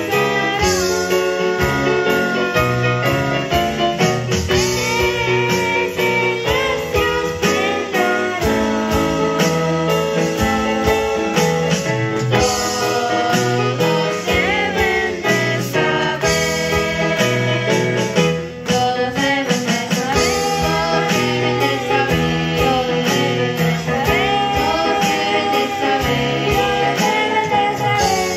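Two young girls singing a worship song as a duet into microphones, over instrumental accompaniment.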